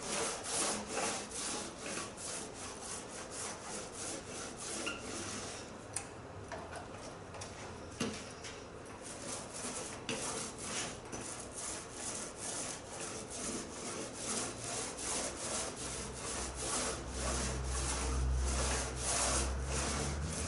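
Small paint roller rolled back and forth over a cedar-strip hull, spreading wet epoxy: a rhythmic rubbing swish of about two strokes a second. A low hum comes in near the end.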